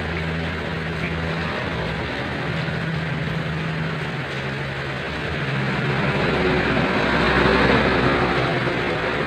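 Rain with vehicle noise: a steady wash of noise over a low engine hum, with a vehicle passing that swells loudest about seven to eight seconds in.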